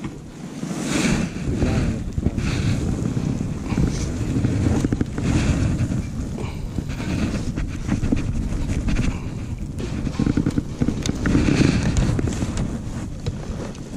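Wind buffeting an action camera's microphone: an uneven, gusting noise that rises and falls.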